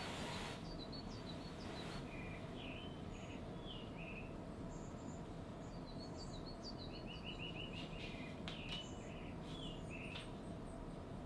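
Small birds chirping and twittering with short repeated calls and brief trills, over a steady low hum of background noise. A brief soft rush of noise sounds right at the start.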